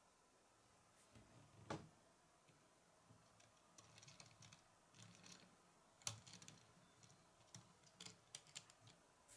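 Faint clicking and rattling of a small Lego brick car's plastic wheels and parts as it is rolled by hand across a wooden tabletop, with a low rolling rumble. Two louder knocks stand out, one about two seconds in and one about six seconds in, and a run of small clicks comes near the end.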